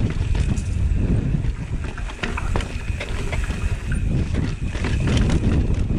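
Wind noise on the microphone, with scattered clicks and rattles from a mountain bike riding down a rough dirt trail.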